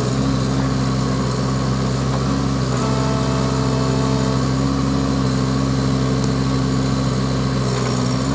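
Bobcat 324 mini excavator's diesel engine running steadily at constant speed as the arm and bucket dig.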